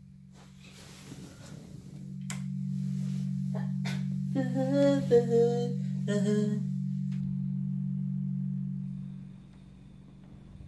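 A steady low hum swells in about two seconds in and fades out near the end. A few sharp clicks and a short wavering, sung-like phrase sound over it in the middle.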